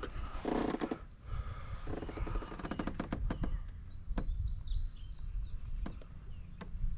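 Handling noise in a plastic fishing kayak: knocks, clicks and two short rasping scrapes. Small birds chirp about four seconds in.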